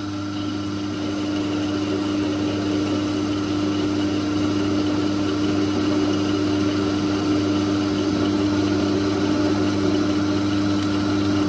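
Myford metalworking lathe running, its electric motor and drive humming with a steady tone while the spindle turns a bolt in the chuck and the tool is wound along it by hand to take a cut; the sound grows slightly louder about a second in.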